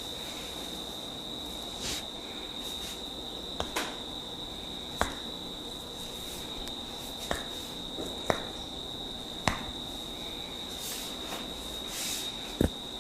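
A massage session with about seven sharp cracking snaps at irregular intervals, typical of hair-cracking and joint-cracking massage, over a steady high-pitched tone.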